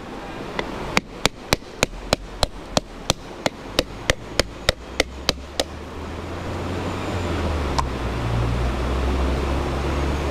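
Rapid, evenly spaced sharp taps of a metal blade against a coconut, about three or four a second, stopping a little past halfway with one more tap later. A low rumble builds from about five seconds in.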